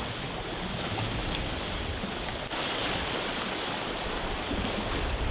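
Sea surf washing over rocky shore ledges, a steady rush of water with some wind on the microphone.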